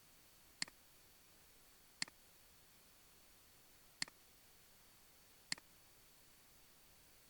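Computer mouse clicking four times at uneven intervals over near silence, each a sharp click with a faint second tick just after it as the button is pressed and released.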